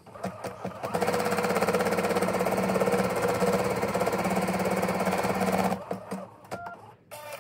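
Bernette B79 embroidery machine stitching at speed, a fast, even needle chatter that starts about a second in and stops abruptly near six seconds: the placement stitch that marks where the next appliqué fabric is to be laid.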